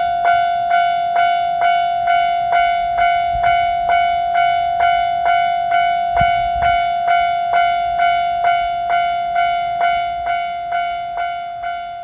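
Japanese railroad crossing's electronic warning bell going 'kan-kan', just over two even strikes a second, each ringing on over a steady tone. A faint low rumble runs under it.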